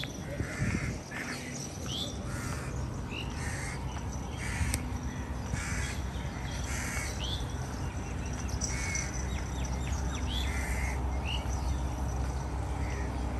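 Crows cawing over and over, short harsh calls about a second apart, mixed with brief rising chirps, over a steady low background hum.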